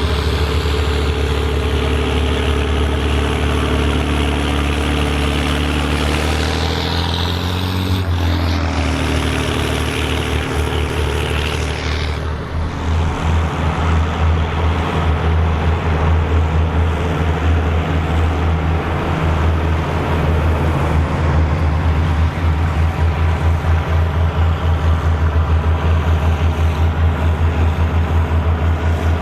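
Volvo BM farm tractor's diesel engine running steadily under load while ploughing. Its pitch shifts about a quarter of the way through, and from around the middle it takes on a fast, even throb.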